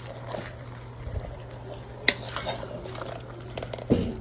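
Pork stew sizzling and bubbling in a pan as it is stirred with a wooden spoon, with one sharp knock about two seconds in.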